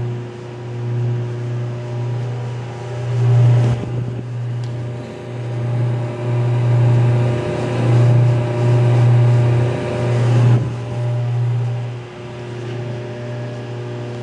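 GlobePharma lab V-blender's electric motor and drive running, a steady low hum that swells and fades unevenly as the twin-shell turns. From about four to ten and a half seconds in a louder, rougher rushing noise lies over the hum.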